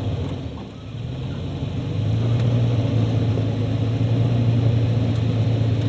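Toyota FJ Cruiser's V6 engine pulling under load as the truck climbs out of a sand rut onto plastic recovery boards. It gets louder about two seconds in and then holds a steady drone.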